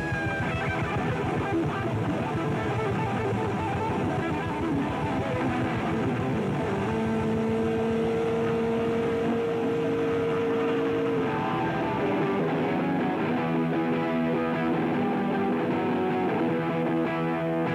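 Live rock band playing loud and steady, electric guitars over bass and drums. A long held note stands out near the middle.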